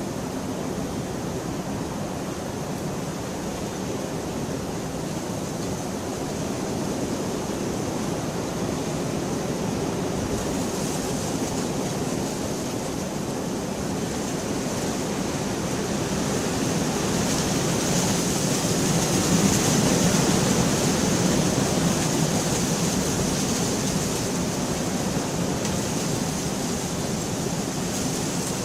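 Steady rain, swelling louder for several seconds about two-thirds of the way through, then easing a little.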